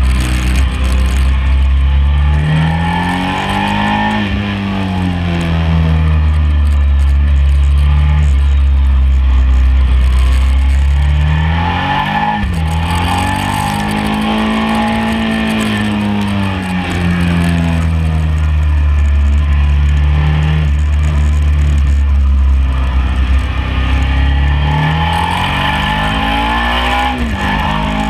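Sport motorcycle engine on track, its note climbing under acceleration and falling away as the rider backs off, three times over, with steady wind rush over the bike.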